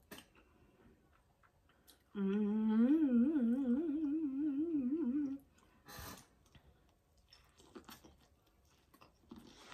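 A woman hums a long "mmm" with her mouth closed for about three seconds, its pitch wobbling up and down. Quieter chewing and mouth clicks follow as she bites into corn on the cob.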